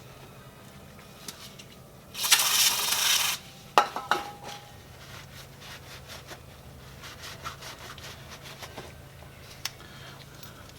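A loud hiss lasting just over a second, then a sharp metallic clink that rings briefly, followed by light clicks of small metal parts and tools being handled.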